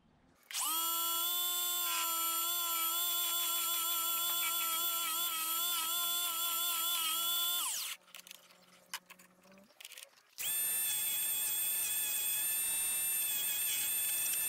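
Small benchtop wood-turning lathe's electric motor running with a high whine, its pitch wavering slightly. It winds down and stops after about seven seconds, then starts up again about three seconds later.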